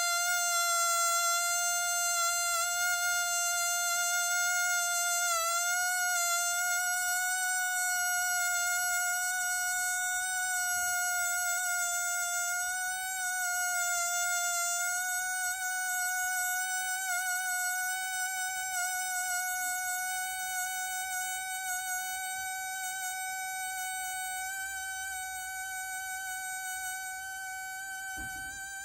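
A balloon vibrating with one steady, high-pitched buzzing tone that wavers slightly in pitch and grows slowly quieter.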